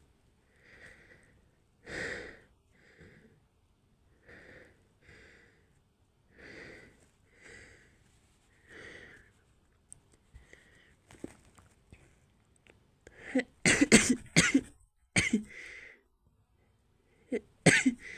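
A woman's short breathy gasps as a sneeze builds, set off by a cotton swab, then several loud sneezes in quick succession about thirteen to fifteen seconds in, and another sneeze near the end.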